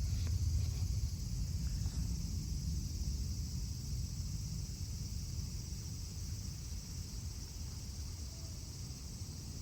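Steady high-pitched insect drone over a low rumble that slowly fades, with a few faint ticks in the first two seconds.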